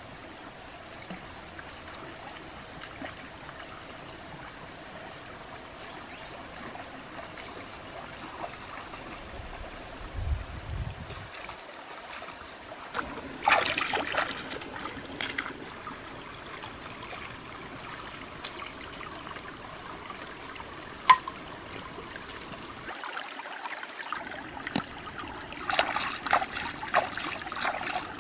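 Shallow stream trickling over rocks, with splashing as someone wades through the water about halfway through and again near the end as hands rinse vegetables in the stream. One sharp click stands out about two-thirds of the way through.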